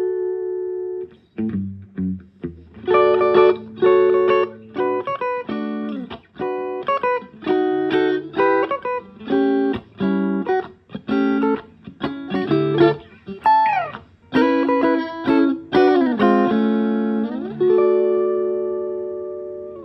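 Fender Todd Krause '57 electric guitar played through a Mesa Boogie tube amp on a clean tone. It plays a phrase of chords and single notes with a few string bends, and ends on a chord left to ring and fade.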